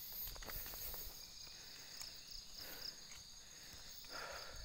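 A steady, high-pitched chorus of insects in the forest, with a few soft footsteps on a dirt path near the start.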